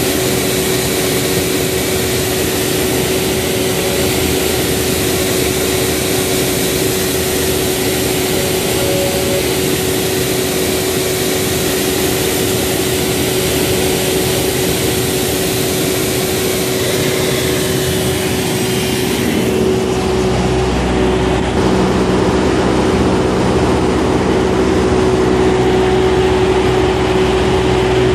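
CNC router spindle whining at a steady pitch as its pointed engraving bit carves fine lettering into a wooden block. About twenty seconds in the high hiss drops away and a lower rumble comes up, while the spindle's whine carries on.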